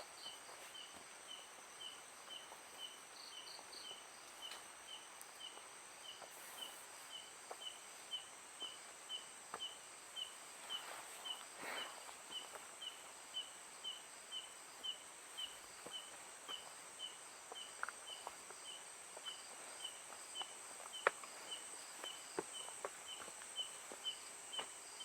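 A high, short chirp repeating steadily about twice a second over a constant high-pitched insect-like hum, with a few faint clicks scattered through; the chirp is taken to come from a lamp.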